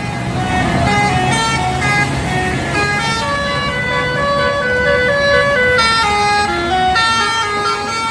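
Indonesian bus 'telolet basuri' multi-tone musical horn playing a tune of held notes that step up and down, over a low rumble.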